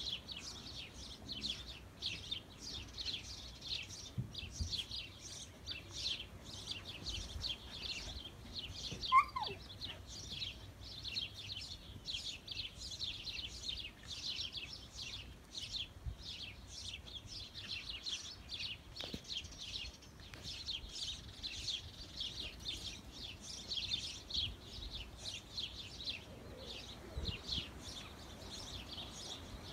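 Many small birds chirping rapidly and continuously. About nine seconds in, a single short, loud cry falls steeply in pitch.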